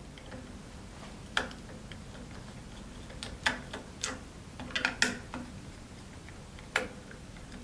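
Screwdriver loosening the screws on the motor cover of an EQ5 GoTo equatorial mount: a handful of light, irregularly spaced clicks and ticks as the driver seats and turns.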